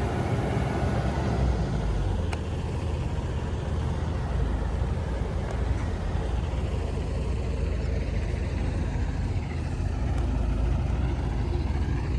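Dump truck's diesel engine running steadily, a low rumble.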